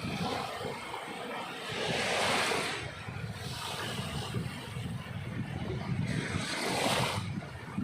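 Sea waves washing in on the shore: two swells of surf, about two seconds in and again near the end, over a steady low rumble.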